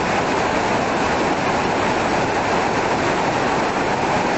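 White-water creek rapids rushing steadily over boulders: a loud, even roar of water with no breaks.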